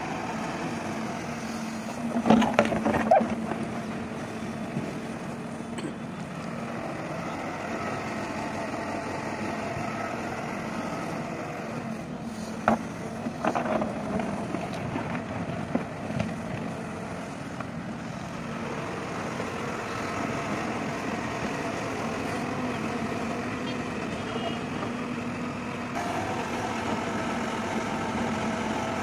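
Hyundai 140 crawler excavator's diesel engine running steadily as it digs and moves earth, with bursts of sharp clanks and knocks about two seconds in and again around twelve to sixteen seconds in as the steel bucket works through rocky soil.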